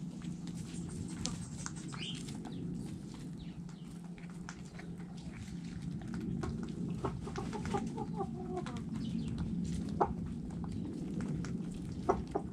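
Domestic hens clucking while they feed, with a short run of clucks a little past the middle and scattered sharp pecking taps, over a steady low rumble.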